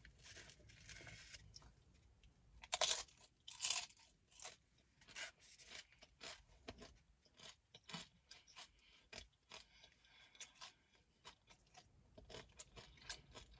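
Close-up mouth crunching and chewing of crisp fried corn tortilla, scattered crackly crunches with the two loudest about three and four seconds in and quieter chewing between.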